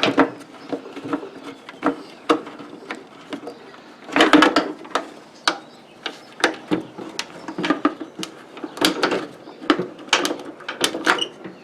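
Plastic clicks, knocks and rattles of a Ford F-150 taillight assembly being handled as its bulb sockets are twisted and unlatched, coming in irregular bursts, busiest about four seconds in and again around nine seconds.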